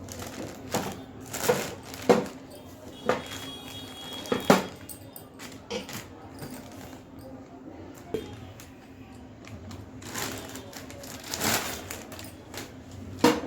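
Scattered metal clinks and knocks with some rustling, from handling a newly unboxed stainless steel gas stove and its parts, over a faint steady hum.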